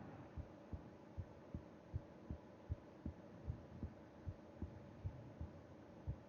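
A sleeping person's heartbeat heard through the chest: a steady run of soft low lub-dub thumps, about 75 beats a minute, over a faint steady hum.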